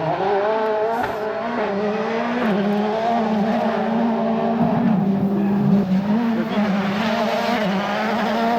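Ford Fiesta RS WRC rally car's turbocharged four-cylinder engine running hard at high revs on a stage. The pitch holds high, with brief dips a few times as the driver lifts and changes gear.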